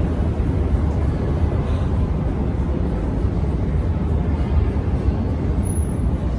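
Bombardier metro train running in the station, a steady loud low rumble that holds at one level, with a brief faint high tone near the end.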